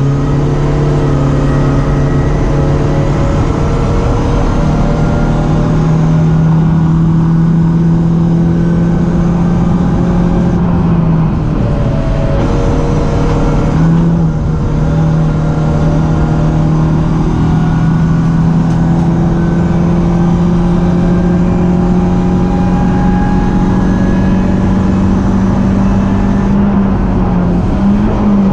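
BMW 318ti Cup race car's four-cylinder engine running hard at high revs, its note holding steady and creeping up in pitch. It dips and breaks briefly about eleven seconds in, then picks up again about fourteen seconds in.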